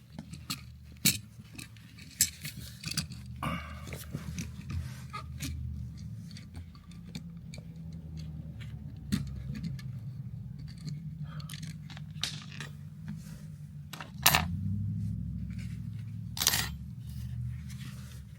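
Small metallic clicks, knocks and scrapes of a three-prong wall outlet and its wires being pushed into the electrical box, over a low rumble. The sharpest knocks come about a second, two seconds and three and a half seconds in, and the two loudest near the end.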